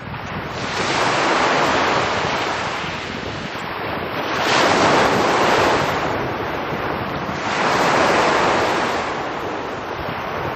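Small sea waves breaking and washing up onto a pebble shore: three surges about three seconds apart, each swelling and then ebbing away.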